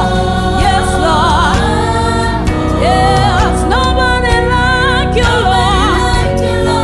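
Gospel music: singing with vibrato over a steady instrumental accompaniment.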